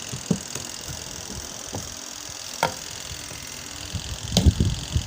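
Spin dryer of a Vision 7 kg semi-automatic twin-tub washing machine running with its lid closed, spinning water out of the clothes, with a steady hum and an occasional click. About four seconds in, a run of low irregular thumps and rattles starts: the machine vibrating as the drum spins.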